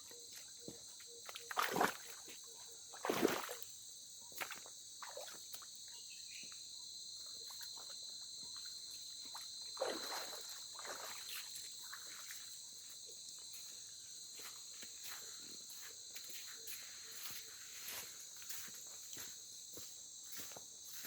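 Insects chirping in a steady, high-pitched chorus, with a few louder brushing scuffs of footsteps or vegetation, the loudest about two and three seconds in and again about halfway through.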